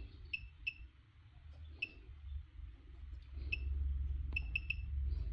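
Short high key beeps from a KONNWEI KW870 battery tester as its buttons are pressed to scroll menus: about seven single beeps at uneven intervals, three in quick succession near the end. A low hum runs underneath and grows louder partway through.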